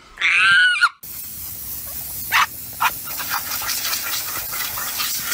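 A cat's brief wavering meow, then a bulldog making short, noisy vocal sounds over a steady hiss, the two loudest about two and a half seconds in and half a second apart.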